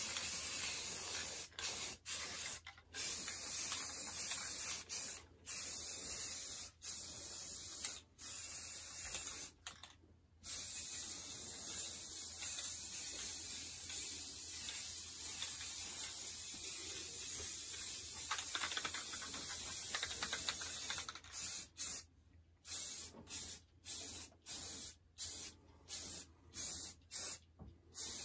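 Aerosol spray paint can hissing as model railroad track is painted: a few sprays with short breaks, then one long unbroken spray of about ten seconds, then a quick run of short squirts near the end.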